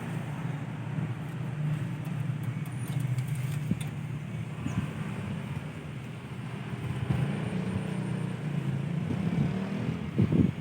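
Small engine running steadily at idle.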